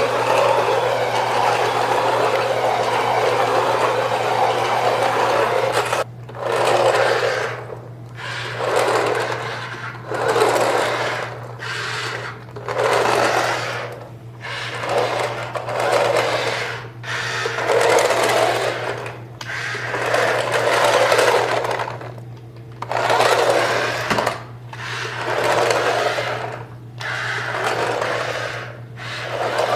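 Electric drive motor of a remote-control Disney Cars Toons Tokyo Mater toy whirring. It runs steadily for about six seconds, then comes in bursts of about a second, roughly every two seconds, as the toy is driven in short spurts.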